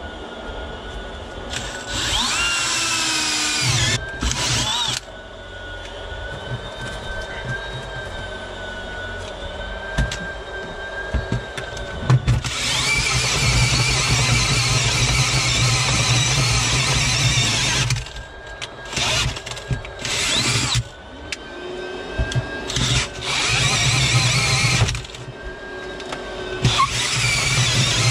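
Cordless drill driving a 2-9/16-inch self-feed bit through wooden floorboards, boring a hole for a drain pipe. It runs in bursts of a few seconds with short pauses between, its whine rising as the motor spins up at the start of a burst.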